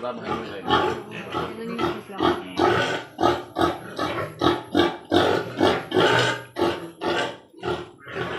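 Pigs grunting and squealing, a dense run of short calls, two or three a second.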